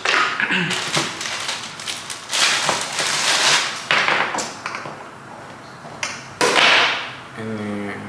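Hookah parts being handled and fitted together by hand: light taps and knocks, with several short hissy rustles.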